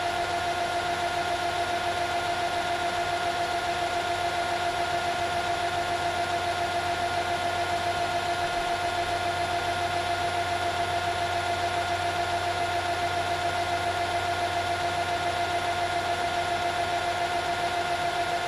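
Metal lathe running at a steady speed with a constant whine from its motor and drive. The cutter is being fed in slowly to touch off on the workpiece.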